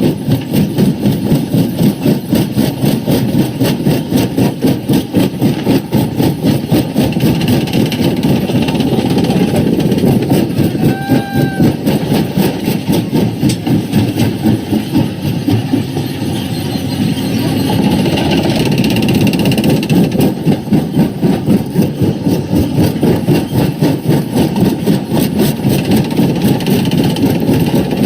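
Primary rock crusher running: a loud, steady mechanical drone that pulses rapidly, a few beats a second, with a short high squeal about eleven seconds in.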